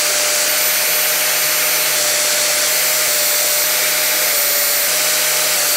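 Angle grinder running steadily at speed, its disc grinding the welded steel legs of a small stand so that it stands level and stops wobbling. A continuous hiss with a steady whine, starting and stopping abruptly.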